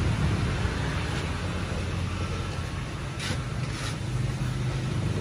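Steady low engine rumble, with two brief rushes of noise a little past the middle.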